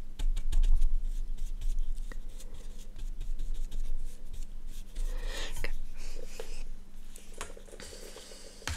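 A makeup contour brush rubbed and stroked against the camera and microphone, making close scratchy brushing sounds with many small clicks and some low thumps of handling.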